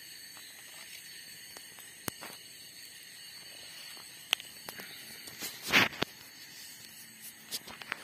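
Steady high-pitched chorus of night insects, with a few sharp clicks and one brief louder rustle just before the middle from handling the plastic handline spool and its monofilament line.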